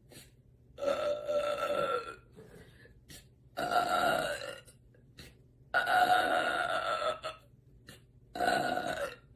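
A woman belching four times in a row, each belch lasting about a second with short pauses between.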